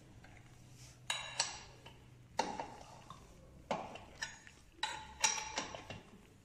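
Irregular sharp metallic clinks, about eight in all, as the clutch parts of a Peugeot 103 moped engine are fitted onto the crankshaft and metal tools knock against them.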